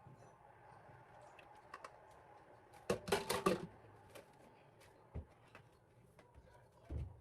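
Kitchen handling sounds while milk is measured for cornbread batter: a quick run of clicks and clatter about three seconds in, then a single knock and a low thump near the end.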